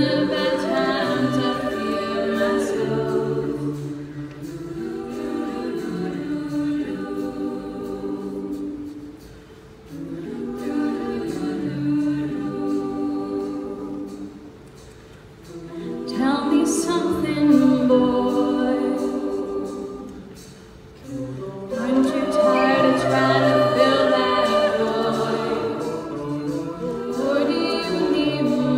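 A cappella vocal group singing in harmony, with a lead voice out front over the backing voices. The singing comes in phrases that fall away briefly three times before swelling again.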